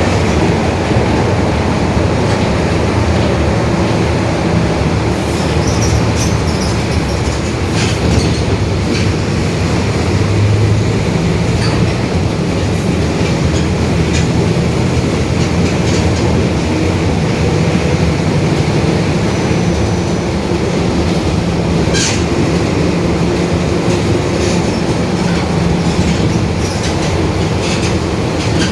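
Mercedes-Benz OF-1721 BlueTec 5 bus running on the road: a steady engine and drivetrain drone with the growl of the differential, which the owner calls a growling differential. Scattered clicks and rattles come through over it.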